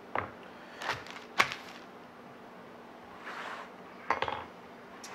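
Kitchen knife chopping onion on a wooden cutting board: a few separate sharp knocks, then a quick run of clinks about four seconds in.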